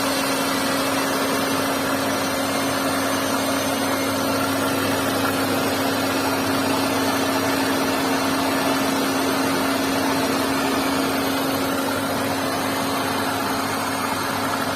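New Hyundai Santro's 1.1-litre four-cylinder petrol engine idling steadily after its revs have settled, with a steady hum. This is the engine noise presented as abnormal.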